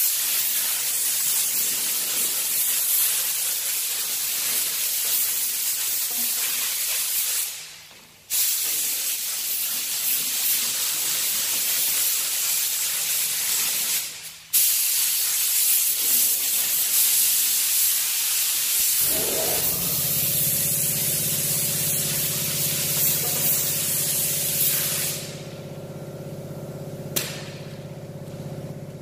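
Air-fed paint spray gun laying on orange paint, hissing in long passes with two brief pauses as the trigger is let go. About two-thirds through, a motor starts up with a steady hum underneath, typical of the air compressor kicking in to recharge.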